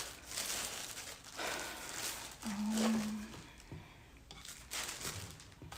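Rustling and scraping of objects being handled and moved on a work table, with one short hummed 'mm' about two and a half seconds in.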